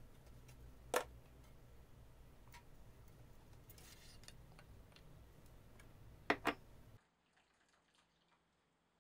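Laboratory glassware of a Soxhlet extractor being handled: a sharp glass knock about a second in and two more close together after about six seconds, over a low steady hum. The hum stops near the end, leaving faint small ticks.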